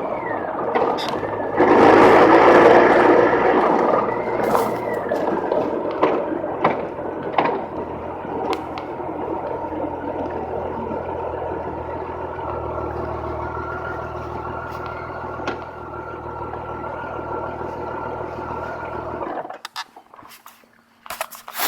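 1988 Honda Gold Wing engine running, with a louder, noisier spell a couple of seconds in, then running steadily until it stops suddenly near the end. The owner is chasing an intermittent weird noise from it.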